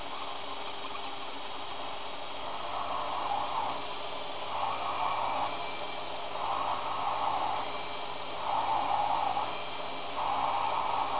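Einhell BT-ML 300 mini lathe running with a steady motor hum while a twist drill bores into a spinning brass rod. A harsher cutting noise swells for about a second roughly every two seconds, starting a couple of seconds in, as the drill bites into the brass.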